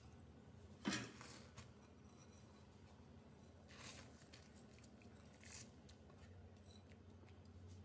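Mostly near silence with a faint low hum, broken by a single soft knock about a second in. Rice and moong dal poured from a glass bowl into a boiling clay pot make a short patter of grains about four seconds in, with another brief rustle a little later.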